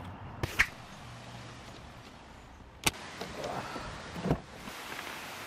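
Handling sounds of a car door: a few light clicks and knocks, a sharp loud click about three seconds in, then the exterior door handle being pulled with a knock as the latch releases, just after four seconds.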